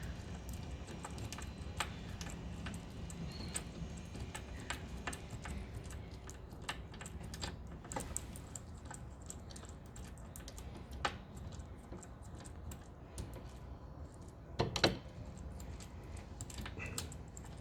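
Scattered small, irregular clicks and taps of a screw and metal sensor bracket being handled and fitted by fingers, with a louder cluster of knocks about fifteen seconds in.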